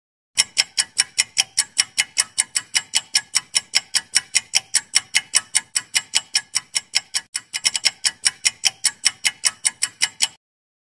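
Quiz timer sound effect: fast, even clock ticking, about five ticks a second, with a brief hitch about seven seconds in. It stops abruptly as the ten-second count ends.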